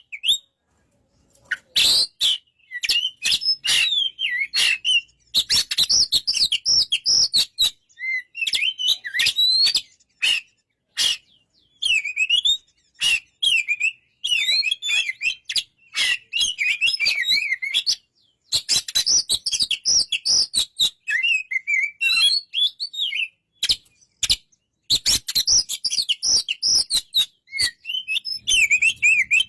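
Oriental magpie-robin (kacer) singing: runs of varied, quickly changing whistled notes mixed with sharp clicking notes, with short pauses between phrases.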